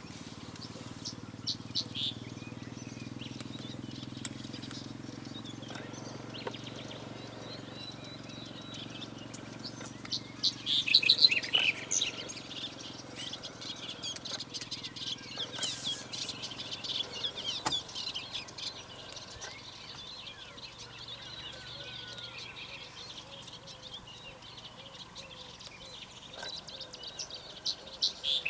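Male black-headed bunting singing: short jangling song phrases, the loudest about eleven seconds in and again at the very end, with lighter chirping between them.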